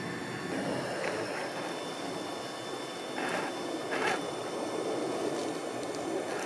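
Axial SCX6 1/6-scale RC rock crawler's electric motor and drivetrain running steadily as it climbs over tree roots, with two short scrabbling noises about three and four seconds in.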